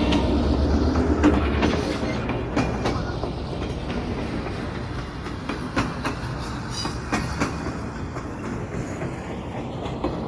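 Train running along the track, its wheels clacking over the rail joints, growing quieter over the first few seconds.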